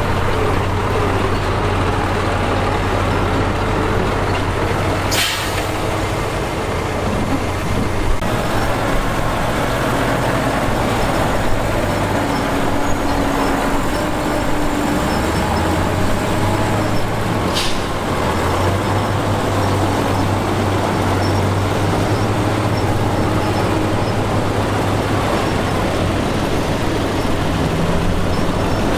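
Heavy diesel construction machinery running steadily with a constant low engine hum, broken by two short, sharp noises about five and seventeen seconds in.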